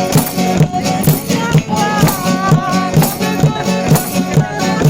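Music with a steady beat and a melody line that bends up and down.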